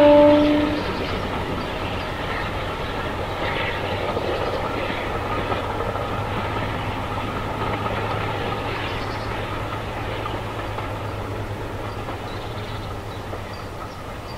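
Diesel train horn sounding a low note that cuts off a little under a second in, then the diesel locomotive working steadily with a low hum that slowly fades as the train moves away.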